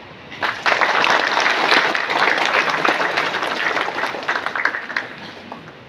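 Audience applauding: a burst of clapping that starts about half a second in, holds steady, then thins out and dies away near the end.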